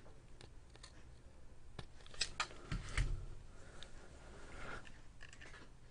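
Small clicks and rustles of jumper wires being handled and pushed into a solderless breadboard, with a soft thump about three seconds in.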